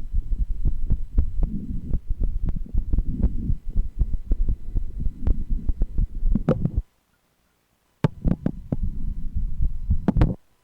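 A woman's heartbeat heard through a stethoscope on the chest: quick, closely spaced low beats over a low rumble of the chest piece against the skin. The sound cuts out for about a second near the middle, resumes, and stops shortly before the end.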